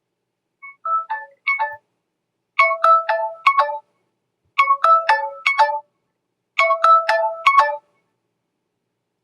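Mobile phone ringtone: a short melody of bright electronic notes, played four times about two seconds apart, with silence between the phrases. The first phrase is quieter and shorter than the rest.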